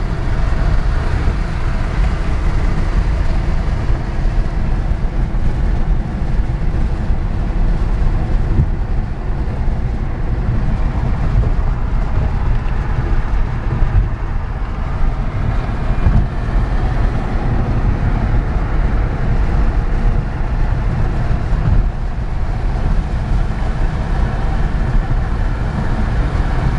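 Steady road and wind noise inside the cabin of an electric-converted 1978 Porsche Carrera cruising at highway speed, a constant low rumble of tyres and air.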